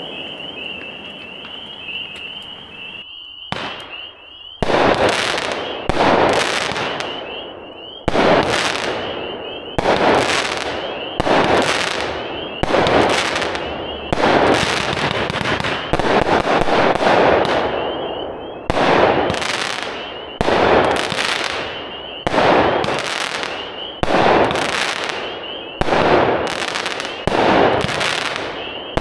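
Black Cat 'Gunfighters from Hell' 49-shot 500-gram consumer firework cake firing. After a fading crackle and a brief lull about four seconds in, shots go off about once a second, each a sharp report that dies away quickly.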